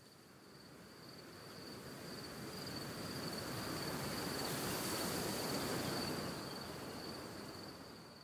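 Grassland ambience: a steady high insect trill over a rush of wind-like noise that swells to a peak about five seconds in and then fades.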